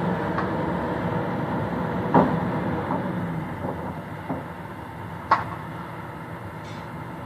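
Heavy machine's engine running steadily, with two sharp clanks, one about two seconds in and a louder one about five seconds in. The engine sound drops a little quieter about four seconds in.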